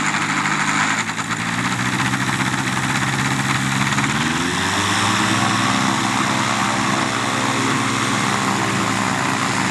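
Microlight trike's engine and propeller running steadily; the pitch rises about halfway through, then holds.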